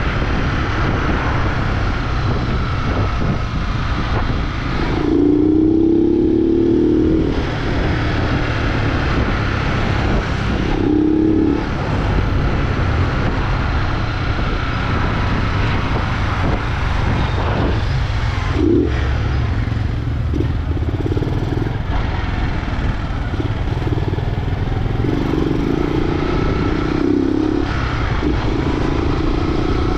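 Honda CG 125 Fan's single-cylinder four-stroke engine running under way, with the air filter removed and a baffle-punched exhaust. The throttle is opened and eased off several times, with louder pulls about five seconds in, around eleven seconds, around twenty seconds and again near the end.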